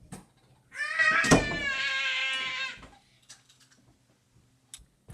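A long, high-pitched wailing cry lasting about two seconds, starting nearly a second in, with a sharp click partway through.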